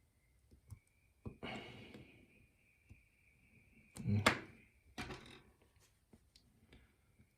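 Handling noises from the challenge lock and tools being worked by hand: a scrape about a second in, a sharp knock with a dull thud about four seconds in (the loudest), and another scrape just after.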